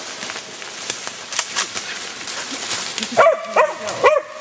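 A hunting dog barking three times in quick succession near the end, after a stretch of brush rustling with a few sharp snaps in the undergrowth.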